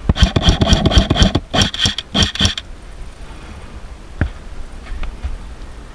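Close rustling and crunching of a player's movement through dry brush and gear for about two and a half seconds, then quieter, with a single sharp click about four seconds in.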